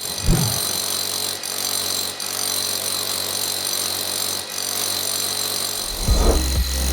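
A power tool running steadily, with a whine of several high tones. About six seconds in, music with a deep bass beat comes in.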